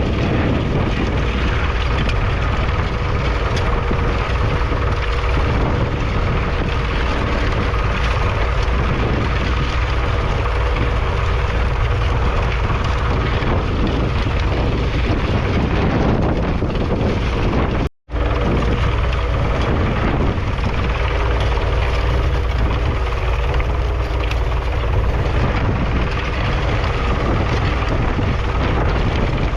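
A 1943 Fordson Model N tractor's four-cylinder diesel engine runs steadily under load pulling a two-furrow trailed plough, with wind buffeting the microphone. The sound cuts out for an instant just past halfway.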